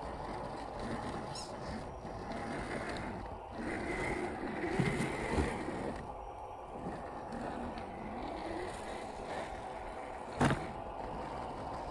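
1/10-scale RC crawler's electric motor and gears whining, rising and falling in pitch as it crawls under load. A single sharp knock about ten seconds in is the loudest sound.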